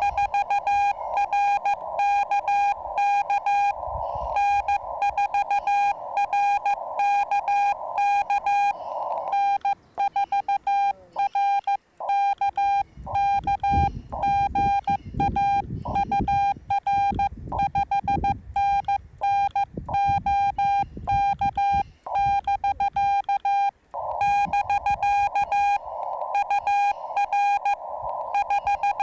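Morse code from a Yaesu FT-891 transceiver: a steady beeping tone keyed in dots and dashes. For the first nine seconds or so it comes through the receiver over band hiss. The hiss then drops out and a clean keyed sidetone sends the operator's own reply. About 24 seconds in, the hiss and the received Morse return.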